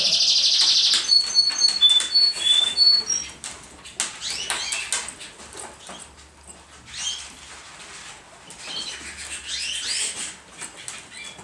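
Pigeons in a loft: wing flapping and scuffling with short, high chirps and peeps. It is busiest in the first few seconds, then the chirps come in scattered bunches.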